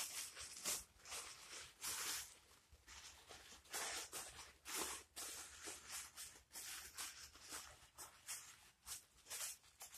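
Thin plastic bag crinkling and rustling in the hands as it is wrapped tightly around a small item, in short irregular rustles.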